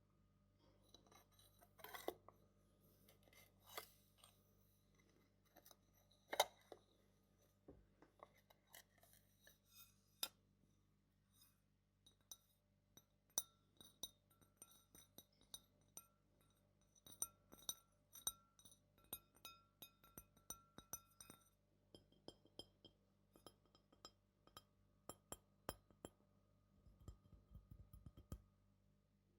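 Irregular series of light clinks and taps of small hard objects, some with a brief high ring, coming more densely in the second half.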